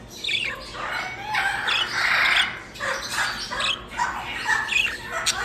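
Birds squawking and chirping in a run of short, harsh calls, about one or two a second, with a longer raspy squawk about two seconds in.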